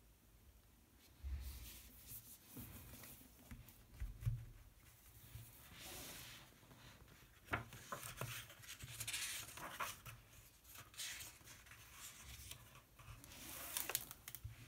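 Hardcover book handled by hand: the cover knocked and rubbed, then opened, and paper pages turned with soft rustling and scraping, plus a few sharp clicks and dull knocks.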